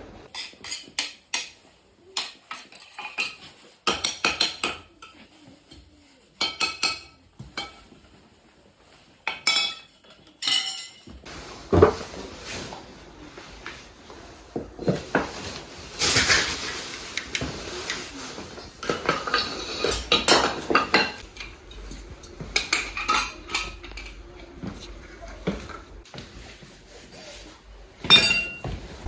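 Metal hand tools clinking and clanking as they are picked up, sorted and set down, a long irregular series of sharp clinks, some ringing briefly.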